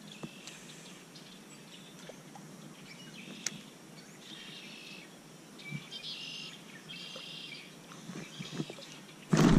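Birds singing in the background, short high trilled phrases repeating every second or so, with a single sharp click about three and a half seconds in.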